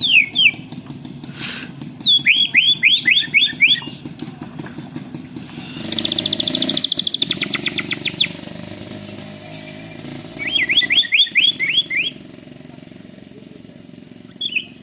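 White-rumped shama singing canary-style phrases: three bursts of quick, rising whistled notes repeated several times a second, and a long rolling trill in the middle. A steady low rumble runs underneath until near the end.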